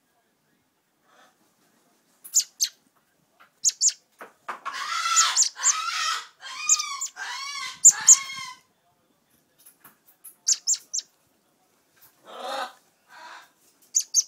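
Blackbird nestling begging for food: scattered short, high chirps, and about four seconds in, a run of loud, rapid begging calls, each note rising and falling in pitch, lasting about four seconds.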